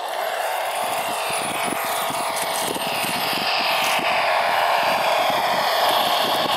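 1/18-scale PRC QX-4 RC rock crawler driving under throttle over rock: a steady motor and gear whine that glides up and down in pitch as the load changes, with small irregular knocks from the tyres scrabbling on the rock. It starts suddenly and grows slowly louder.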